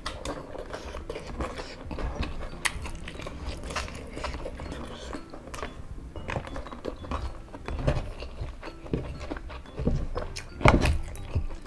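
Eating sounds: a person biting and chewing crispy chicken nuggets coated in sambal geprek, then rice eaten by hand, in many short irregular clicks, with one louder thump near the end.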